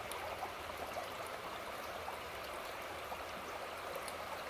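Water of a small, shallow creek rippling steadily over stones and around branches.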